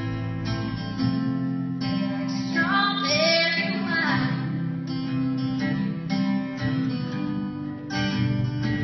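Acoustic guitar strummed in steady chords, with a girl's voice singing a line over it through the middle.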